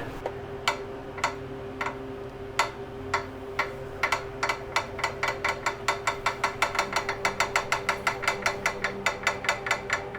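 Schwinn 470 elliptical drive being turned over with its covers off, ticking with each turn of the flywheel. The ticks speed up from about two a second to about six a second as it spins faster, over a steady hum. Nothing is seen rubbing, so the owner suspects a bearing on the flywheel or on the belt tensioner idler.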